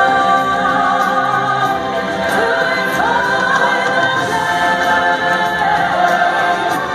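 Choir singing a stage-show song with instrumental backing, many voices in harmony at a steady loud level.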